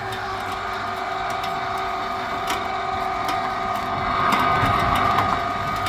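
Roofing hoist's winch motor running with a steady whine as it hauls a roof panel up the hoist rail, with occasional light clicks; it grows a little louder about four seconds in.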